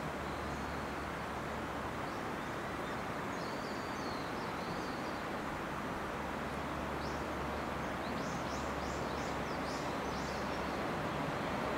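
Steady outdoor background noise with a low hum, and small birds chirping: a couple of arched calls a few seconds in, then a run of quick chirps later on. Near the end the background grows slightly louder as an electric train approaches around the curve.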